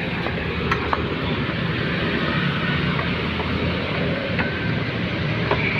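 Steady background noise, a low rumble with hiss, with a few faint clicks as hands work the radiator fan's plastic shroud and wiring connector.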